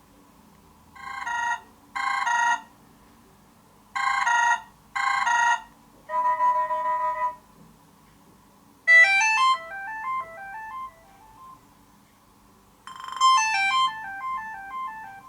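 Built-in ringtones of a BQ Aquaris 4 Android smartphone, played one after another as short previews with pauses between them. First a tone of repeated paired chords, then a held chord, then a tinkling run of stepping notes, then a pattern of repeated notes.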